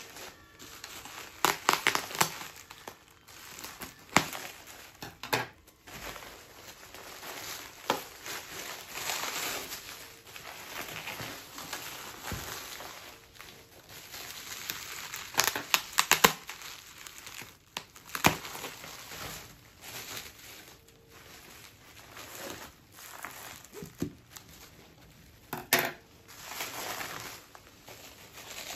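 Bubble wrap being handled and pulled off a boxed teapot: irregular crinkling and rustling of plastic, with a few sharp crackles.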